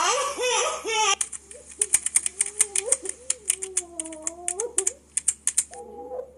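Rapid, irregular clicking of fingers typing on a laptop keyboard, starting about a second in and stopping shortly before the end. Under it, and alone at the start, a woman's voice wavers up and down in soft whimpering sobs.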